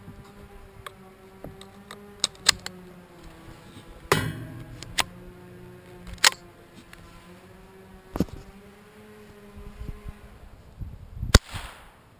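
Mossberg 702 Plinkster .22 rifle firing Remington CB long subsonic rounds: a series of quiet, sharp cracks spaced a second or more apart, some louder than others, with one of the loudest near the end.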